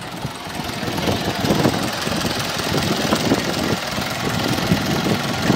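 Mahindra 575 DI tractor's four-cylinder diesel engine idling steadily, a little louder from about a second in.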